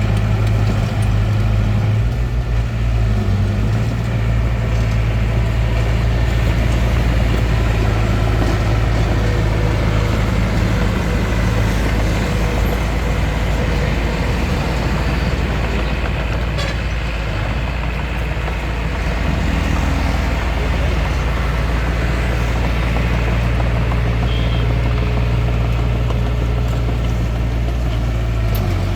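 Hitachi DX45M bulldozer's diesel engine running steadily, a deep continuous drone that eases a little past the middle and then picks up again.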